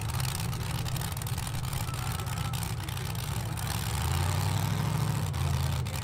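Cammed LS V8 in a Chevy S-10 burnout truck idling with a choppy, uneven lope. About four seconds in it settles into a steadier, deeper note for a second or so.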